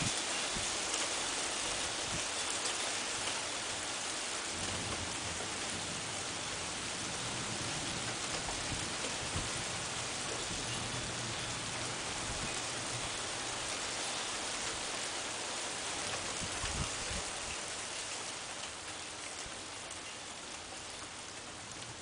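Heavy rain falling during a thunderstorm, a dense steady hiss with a few sharp ticks of drops; it eases slightly near the end.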